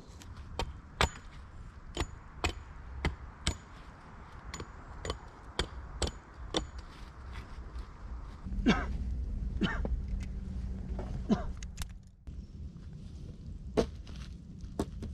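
Repeated sharp knocks, about two a second, then a few slower, spaced ones after about eight seconds.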